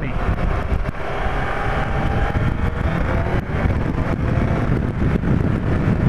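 Yamaha FZR1000 inline-four engine running steadily while the motorcycle is ridden along a road, with heavy wind noise on the microphone.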